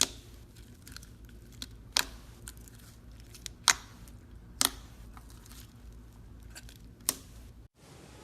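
Slime being worked by hand, giving sharp popping clicks at irregular intervals, five loud ones among smaller ones. The sound cuts off abruptly near the end.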